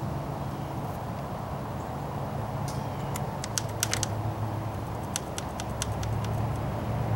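Small sharp clicks and ticks of a transducer mounting bracket being handled and fitted against a boat transom, in two quick clusters about three and five seconds in, over a steady low hum.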